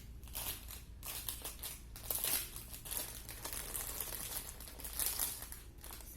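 Plastic packaging crinkling and rustling in irregular bursts as a squishy toy is unwrapped by hand, loudest about two seconds in and again near the end.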